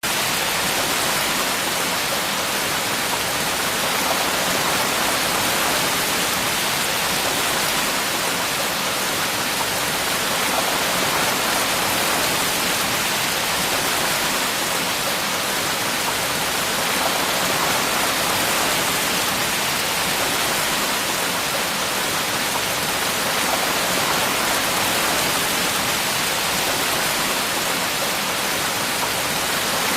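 Steady rain falling: an even, unchanging hiss with no single drops standing out.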